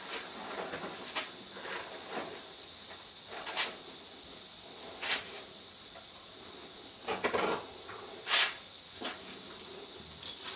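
Tack being handled while a horse's western saddle is cinched up: scattered light clicks, knocks and rustles of leather and buckles, with a quick cluster of them about seven seconds in and a sharper click near the end.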